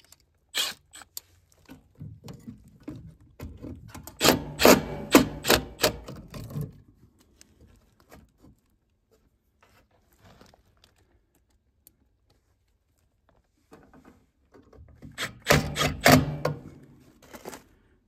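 Handheld power tool running in two short bursts, about four seconds in and again near the end, with rapid clicking over a low motor hum, while the new air handler breaker is fastened in place. Lighter clicks of hands on metal parts come between the bursts.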